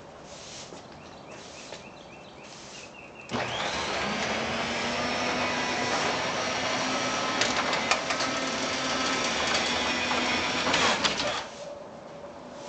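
Zero clearance garage door opener's track-mounted motor starting about three seconds in with a rising whine, then running steadily for about eight seconds as it drives the door, with a few clatters, and stopping suddenly near the end.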